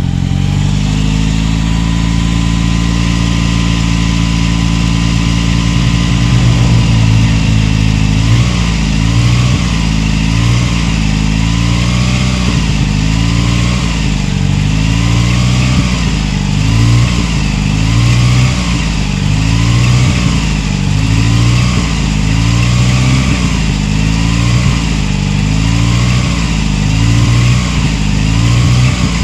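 Dodge Ram pickup's engine idling just after a cold start on new spark plugs. It is steady at first; from about eight seconds in the idle swells and dips in a regular pulse a little more than once a second.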